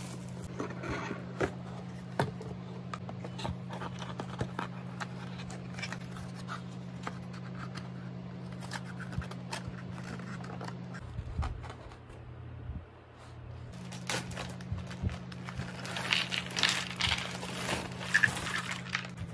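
Handling a cardboard jigsaw-puzzle box: light scraping and tapping of its cardboard divider tray and crinkling plastic. Near the end a plastic bag of puzzle pieces is poured out, a dense rattling clatter of pieces. A steady low hum runs underneath, dropping out briefly about halfway.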